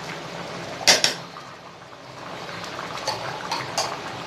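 Chicken biryani boiling in a large aluminium pot, a steady bubbling, as the rice cooks before dum. About a second in, a metal spoon clinks twice against the pot, with a few lighter clinks near the end.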